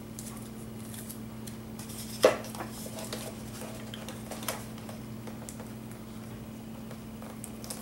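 Light clicks and taps of model airplane kit parts and tape being handled on a table, with one sharp knock about two seconds in, over a steady low hum.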